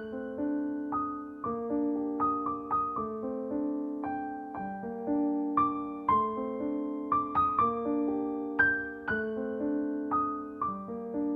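Gentle piano music: single struck notes a few times a second, ringing on over held lower notes, with no singing.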